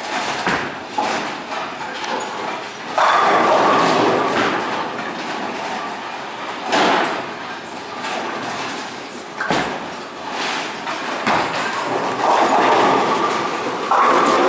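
Bowling ball rolling down a wooden lane and crashing into the pins about three seconds in, followed by pin rattle and pinsetter clatter. More sharp knocks and pin crashes from the alley follow, with loud crashes near the end.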